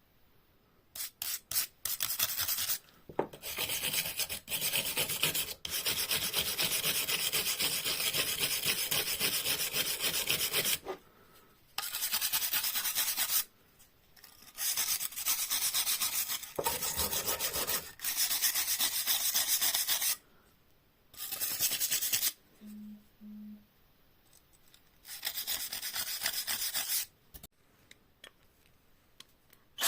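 Rapid back-and-forth abrasive scraping on the old knife's metal blade, as in hand sanding or filing, in spells of a few seconds broken by short pauses. The longest spell runs from about 1 to 11 seconds in.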